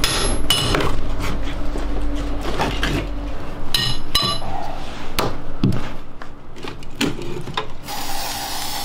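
Hammer and pry bar knocking and prying at wooden wall studs and plaster during tear-out: a run of sharp knocks, with a few ringing metal clanks in the first half. Near the end an aerosol spray can starts hissing.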